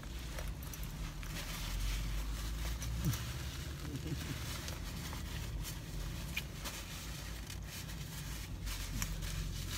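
Paper napkin rustling and the mouth sounds of biting and chewing a flaky beef patty, over a steady low hum inside a car.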